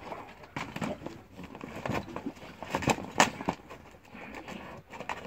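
Two dogs biting and tugging at a fox: irregular scuffling, rustling and snapping noises, with the sharpest knock about three seconds in.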